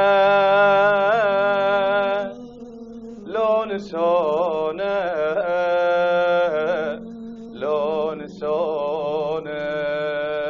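Solo voice singing a slow Iraqi-style lament in long melismatic phrases, the held notes wavering, over a steady low drone.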